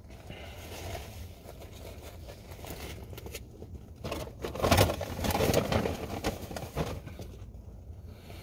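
A person eating a fast-food burger-and-fries meal up close: chewing and handling food and wrapper, with fine crackly clicks. There is a louder crackling rustle about halfway through, over a low steady rumble in the car's cabin.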